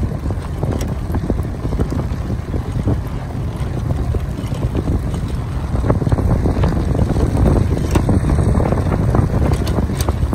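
Wind buffeting the microphone: a heavy, steady low rumble that grows louder about six seconds in, with scattered faint clicks through it.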